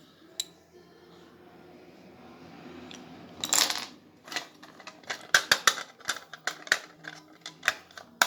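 Handling of the servo box contents: a short rustle of packaging about three and a half seconds in, then a quick run of sharp clicks and clacks as small hard parts are picked up and set down.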